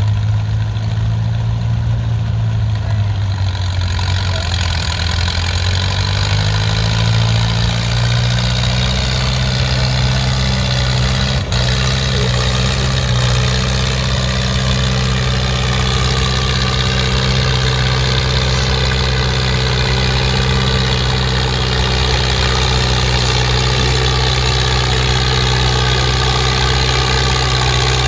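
Vintage Oliver tractor engine running under load as it pulls a weight sled slowly down the track. Its engine speed rises a few seconds in and then holds steady, with a single brief click about eleven seconds in.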